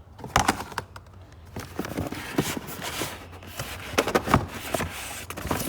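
Car parts and their packaging being handled: irregular clicks, clinks and rustling, over a steady low hum.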